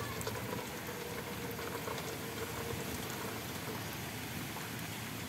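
Water pouring onto boiled noodles in a stainless steel colander and splashing as it drains through the holes, a steady trickling.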